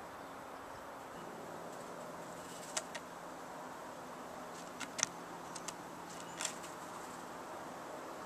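A blue jay on a wooden deck railing, landing by a pile of in-shell peanuts and picking at them: a few sharp clicks and taps in small clusters, about three seconds in, around five seconds and again near six and a half seconds.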